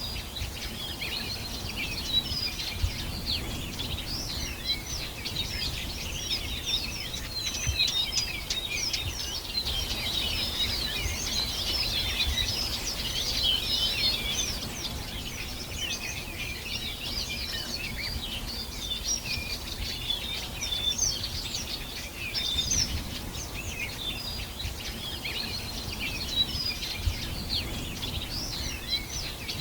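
Many small birds singing and chirping at once, a dense, continuous chorus of short high chirps and trills, over a steady low background rumble.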